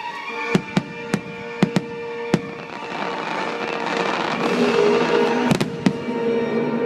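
Fireworks bursting over the show's orchestral soundtrack: a run of sharp bangs in the first two and a half seconds, then two more about five and a half seconds in, with the music playing throughout.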